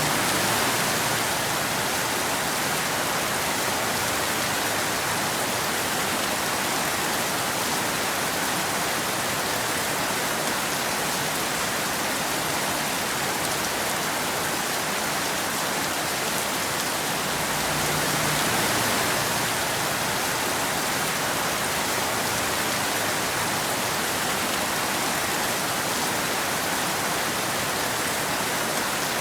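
Steady rain falling in an even hiss, swelling slightly about a second in and again past the middle.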